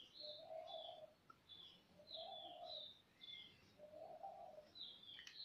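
Faint birds: a dove cooing three times, about two seconds apart, while small birds chirp with short high notes throughout.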